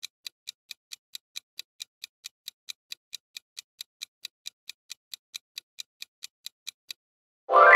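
Countdown-timer ticking sound effect, a steady clock-like tick about four times a second, marking the seconds running out on the quiz timer. The ticking stops near the end, and a bright ringing chime with several pitches sounds and begins to fade.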